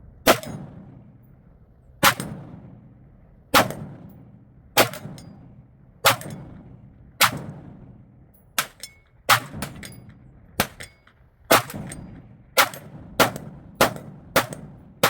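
A rifle fired about fifteen times in quick succession, each shot sharp with a short ringing tail. The shots come about every second and a half at first and then speed up in the second half.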